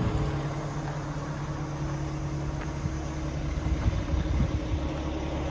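A crane's engine idling steadily while logs are hooked for lifting.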